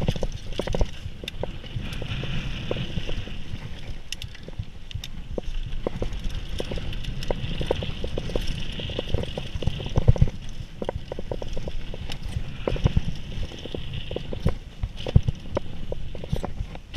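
Mountain bike riding down a dirt trail: irregular sharp clacks and rattles from the bike over bumps, with a hiss that comes and goes, and a few harder knocks about two-thirds of the way through.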